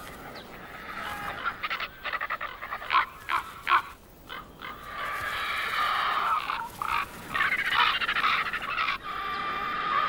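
Ravens and griffon vultures calling harshly as they squabble over a carcass. There is a quick run of short calls at first, then from about halfway a denser, longer stretch of calling.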